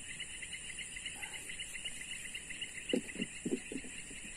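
Insects chirring steadily: a fast pulsing trill and a high, even whine. About three seconds in come a few short low thumps.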